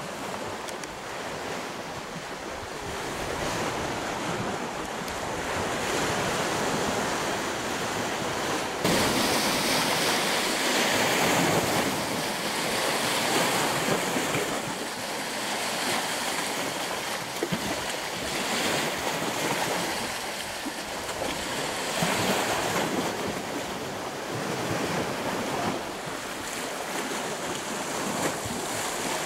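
Lake waves washing over the stones of a rocky shoreline, a steady rushing wash that grows louder about nine seconds in.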